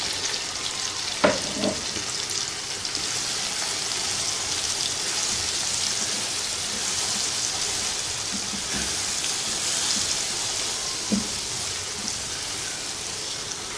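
Onion, tomato and garlic sizzling steadily in hot oil in a non-stick frying pan as freshly added ground spices are stirred through with a silicone spatula, the spatula giving a few light knocks against the pan.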